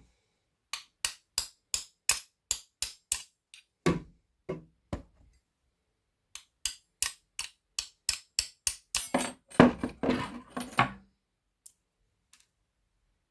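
Hammer blows struck in two quick runs of about three a second, sharp and ringing, the second run ending in a louder, denser cluster of knocks.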